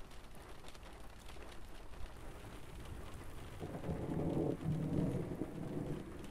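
Distant thunder rumbling for about two and a half seconds, starting about halfway through, over a steady background hiss.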